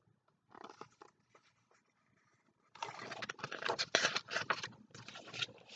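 A large hardcover picture book being handled and its page turned close to the microphone: a short rustle of paper about half a second in, then from about three seconds in a longer stretch of paper rustling and scraping.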